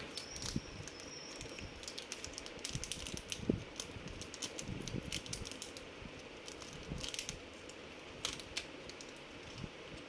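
Faint crinkling and small clicks of a foil anti-static bag being handled and opened to take out a new M.2 SSD, with a light knock about three and a half seconds in.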